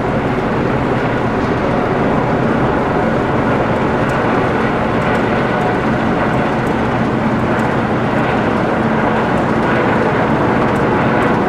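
Airbus AS365 Dauphin twin-turbine helicopter in flight, its rotor and engines making a loud, steady noise with no breaks.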